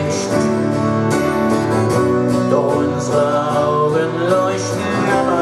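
Live band playing a guitar-led passage of a rock song, with a steady beat and cymbal accents.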